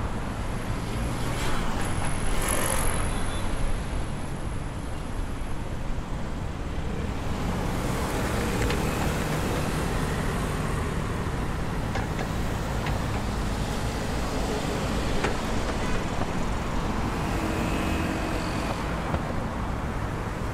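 Steady city road traffic at an intersection: cars and a city bus driving past.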